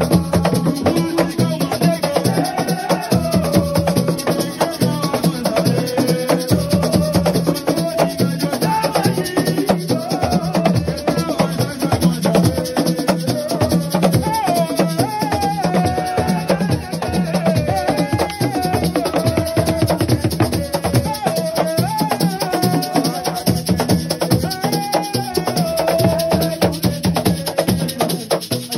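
Assiko music: fast, dense drumming with rattling shakers, and a voice singing over it.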